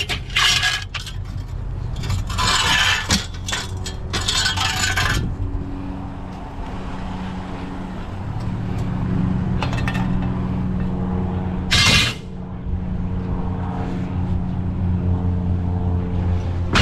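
A vehicle engine running steadily, with bursts of scraping and rattling from junk being handled near the start, for a few seconds from about two seconds in, and once more briefly near the end.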